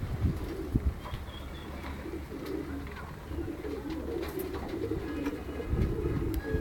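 Domestic pigeons cooing: low, warbling, overlapping coos that build up from about two seconds in, with a few faint clicks.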